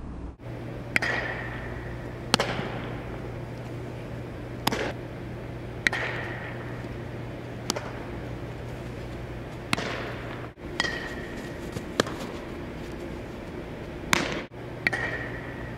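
Baseballs smacking into leather gloves in a game of catch: about ten sharp pops at irregular intervals, each echoing briefly around a large indoor fieldhouse, over a steady low hum.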